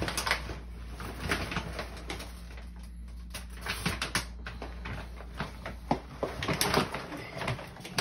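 Irregular rustling, clicks and light knocks of hands rummaging among bags and things on a closet floor, over a steady low hum that stops about three quarters of the way through.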